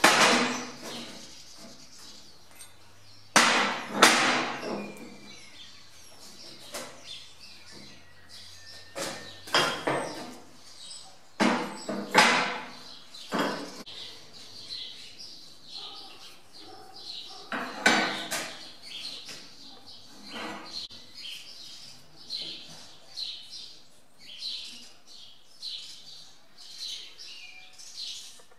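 Steel parts knocking and clanking on a steel workbench top as they are set down and handled, about eight sharp knocks each with a brief ring, spread over the first twenty seconds. In the last third, birds chirp repeatedly.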